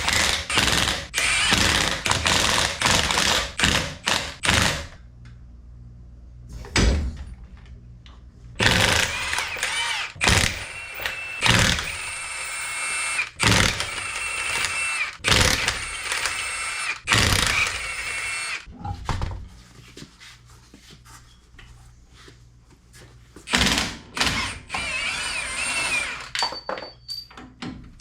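Mechanic's tool work on a truck's shock and coil-spring assembly: a quick run of clicks and knocks, then repeated clanks and several short, one-second bursts of a power tool with a high whine.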